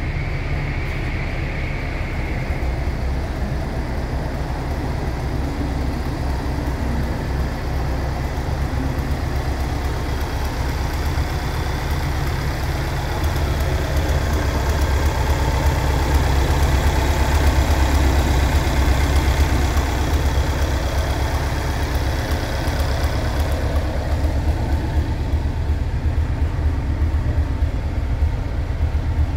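Classic VW Bus's air-cooled flat-four engine idling steadily, a low even hum that grows louder for several seconds around the middle.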